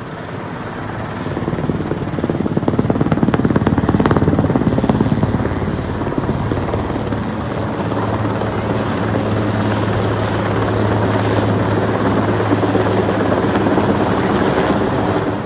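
Helicopter flying overhead with a load slung on a long line, its rotor beating and turbine running. The sound builds over the first two seconds, is loudest a few seconds in, then holds steady.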